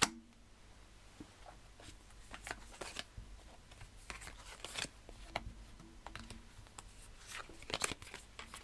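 Paper cards being handled on a table: soft, irregular taps and rustles as cards are picked up from a spread and stacked, a few louder near the end.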